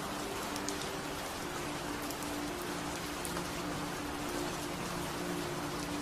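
Recorded steady rain, an even hiss with scattered drop ticks, with soft low steady tones humming underneath that fade in and out: a rain-sound delta-wave relaxation track.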